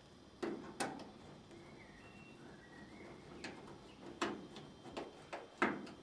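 Screwdriver clicking and knocking on the appliance's sheet-metal back panel and screw as the top cover's screw is driven in: about seven sharp, uneven clicks.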